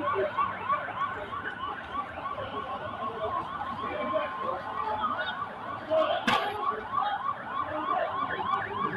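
Vehicle siren yelping, a fast rising-and-falling wail repeating about four times a second. A single sharp knock comes about six seconds in.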